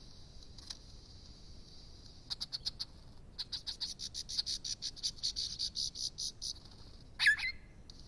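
Male superb lyrebird's courtship display song: runs of rapid, even clicking pulses, about eight a second, then one loud sharp call with a falling note near the end, over a steady high hum.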